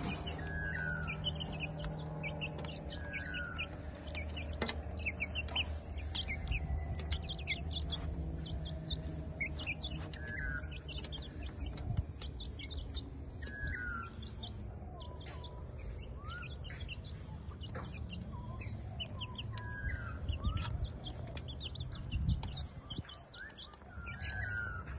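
Birds chirping: a short falling call repeats every few seconds over many quick high chirps. A few sharp taps come from hens pecking corn off a wooden board, over a low steady hum.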